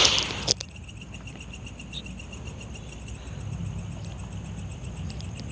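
Night insects, crickets, chirping steadily in rapid pulsing trills among the vegetation. A brief loud rustling burst at the very start is the loudest sound.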